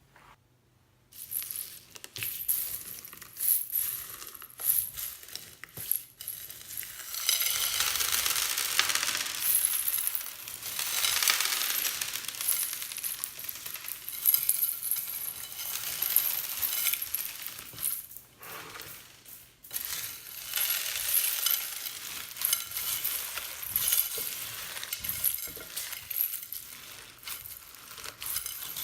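Clear slime mixed with plastic beads and floam being squished and stirred, giving a dense crunchy crackling with many small clicks of beads knocking together. It starts about a second in and comes in denser stretches.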